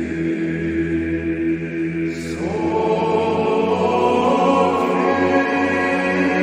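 Choir singing Byzantine chant: a low drone (ison) held steady while, about two seconds in, more voices enter and slide up to a higher sustained melody. The voices ring in a long reverberation from electronically simulated Hagia Sophia acoustics.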